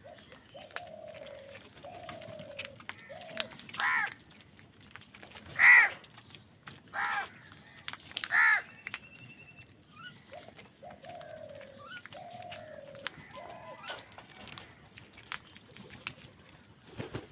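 Crows cawing: four loud, harsh caws about a second and a half apart in the middle, with softer falling calls before and after them.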